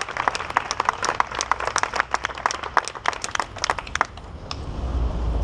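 Crowd applauding with scattered hand claps that die away about four seconds in, followed by a low rumble.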